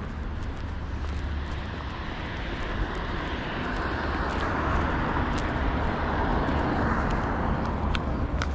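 Street traffic noise: a steady low rumble, swelling in the middle as a car drives past on the road.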